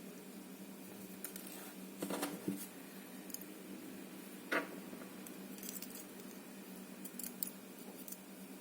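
Small metallic clicks and clinks of a pick or tweezers and pin parts handled against an ABUS 72/40 padlock core while its pins and springs are being reloaded. There is a cluster of clicks about two seconds in and one sharper click near the middle, over a steady low hum.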